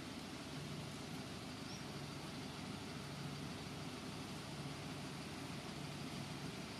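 Steady low hum with an even hiss of outdoor background noise; no distinct events stand out.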